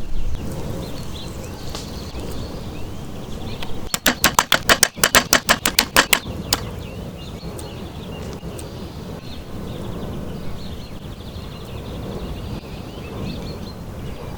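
Rapid chopping: a quick run of about a dozen sharp knocks of a blade on a board, about six a second, lasting two seconds, over a steady outdoor background with faint bird chirps.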